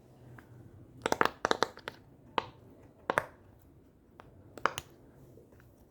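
Silicone bubbles of a pineapple-print pop-it fidget toy pressed through one at a time, each giving a short sharp pop: a quick run of several about a second in, then single pops about a second apart.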